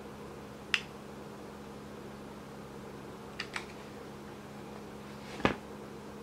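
A few sharp clicks from handling a stainless worm-drive hose clamp on a corrugated hose and PVC pipe fitting: a single click about a second in, a quick pair in the middle, and a louder knock near the end, over a steady low hum.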